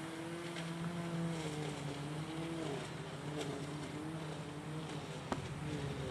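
A motor running steadily, a low hum whose pitch wavers slightly, with a single sharp click about five seconds in.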